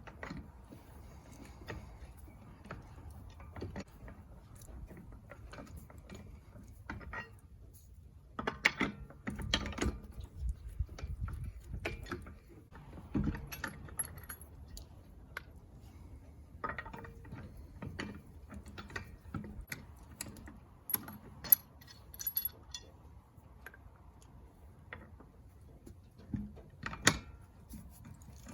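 Loosened lug nuts being unscrewed from the wheel studs with the lug wrench: irregular bursts of metal clicks, clinks and scrapes from the nuts and wrench, with one sharper clank about three quarters of the way through.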